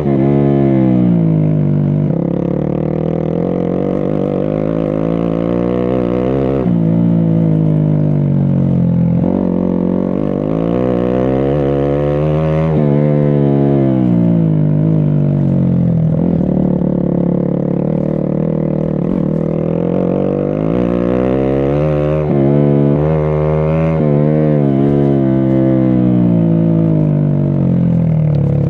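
A vehicle engine revving up and down again and again as it climbs a rough off-road track under load. Its pitch falls and rises in long sweeps, then wavers quickly near the end.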